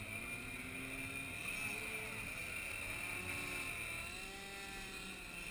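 Several radio-controlled aerobatic model airplanes buzzing at once during a mass hover, their engine pitches overlapping and rising and falling as they are throttled to hold the hover.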